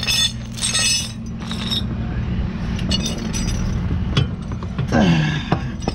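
Tow chains and steel hooks clinking and rattling as they are handled, in several short bursts, over a steady low engine hum.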